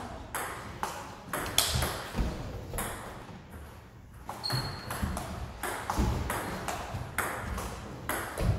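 Table tennis ball clicking back and forth between paddles and table in a rally, a couple of hits a second, with a short lull about three seconds in before play picks up again.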